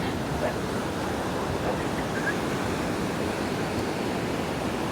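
Ocean surf washing steadily on the beach, an even rush of breaking waves.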